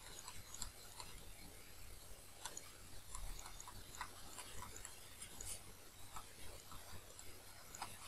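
Faint, irregular ticks and light scratches of a stylus writing by hand on a pen tablet, over a low steady hum.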